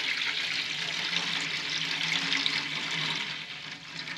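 Water being poured off from a plastic bowl into a metal pan in a steady splashing stream, easing off near the end. It is the water being decanted off homemade cassava starch (polvilho) that has settled at the bottom of the bowl.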